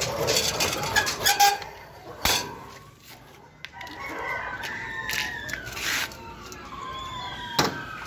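Rooster crowing, long drawn-out calls in the second half, after a few sharp knocks in the first half.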